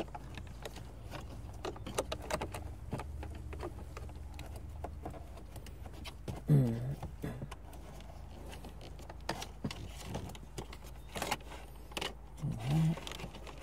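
Irregular light clicks and rattles of a cable and its plastic connectors being fed down through the dashboard, knocking against the plastic trim.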